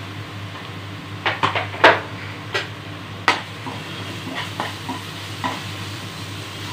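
A metal spoon stirring and scraping an onion masala with dry spice powders in a non-stick kadhai, the paste sizzling in the oil. Irregular sharp clicks of the spoon against the pan, the loudest about two seconds in.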